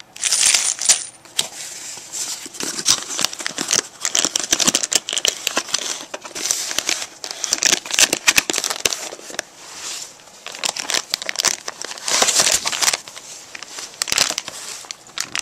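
Clear plastic packaging bags crinkling as they are handled, a continuous run of crackles and rustles that swells and fades.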